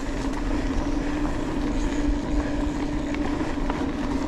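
Mountain bike rolling steadily along a gravel fire road: a constant hum from the tyres on the gravel, with wind rumbling on the microphone.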